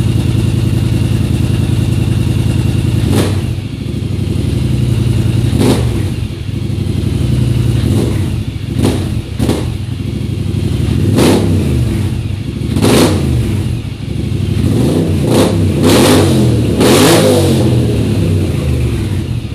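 Polaris Scrambler XP 1000 ATV's parallel-twin engine idling and blipped by the throttle about ten times. Each short rev rises and falls in pitch, and several come in quick succession near the end.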